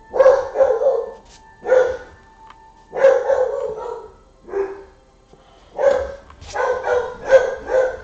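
A dog barking repeatedly, in groups of barks about every second.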